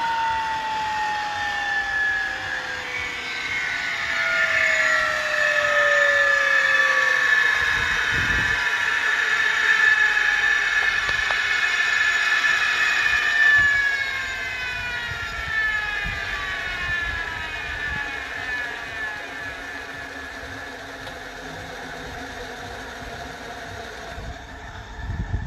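Rolls-Royce Gem turboshaft engine whining: a falling whine at first, then a strong steady high whine, and from about halfway several tones slide down in pitch together as the level drops, the compressors and turbines spinning down.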